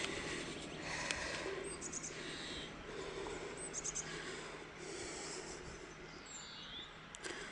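Quiet outdoor ambience: birds singing now and then in short high chirps and trills over a faint steady low hum.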